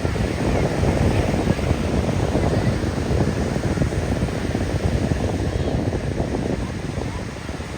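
Wind buffeting the microphone in a steady, gusting rumble, with the wash of ocean surf beneath it.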